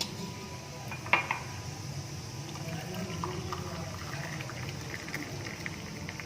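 Hot herbal decoction poured from a pan through a strainer into a glass, with a sharp clink about a second in and small ticks of utensils.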